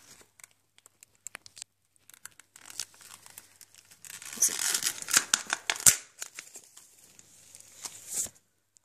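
Crinkling and rustling of a toy magnet book's plastic packaging as a child's hands work it, with scattered clicks at first and a louder, denser stretch of crinkling about four seconds in.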